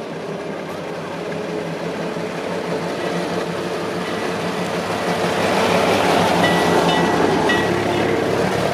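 Vintage open fire engine's petrol engine running as it drives up and passes close, growing steadily louder, with a vintage motorcycle coming up behind it near the end.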